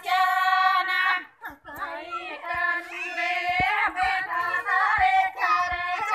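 A group of women singing a Banjara (Lambadi) devotional song together, in phrases with long held notes.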